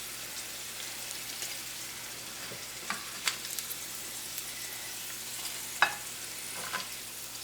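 Okra pieces frying in hot oil in a pan, a steady sizzle, with a few sharp taps of a utensil against the pan as the fried pieces are lifted out.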